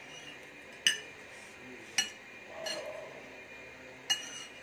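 Metal fork clinking against a ceramic plate three times as it scoops through Maggi noodles, each clink short with a brief ring.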